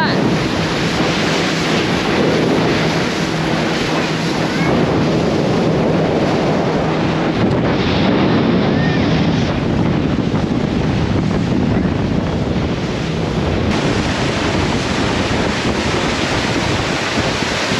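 Wind buffeting the microphone and water rushing past the hull of a small boat running at speed, with a steady engine drone underneath.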